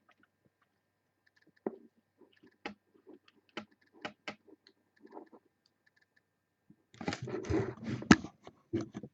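Scattered clicks of a computer mouse and keyboard, then about two seconds of louder rustling clatter with one sharp knock near the end.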